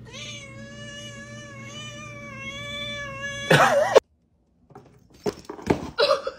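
A cat's long, steady meow, one held note for about three and a half seconds, ending in a louder, wavering cry that cuts off. After a break, a few light rustles and taps as a kitten paws at cardboard and paper.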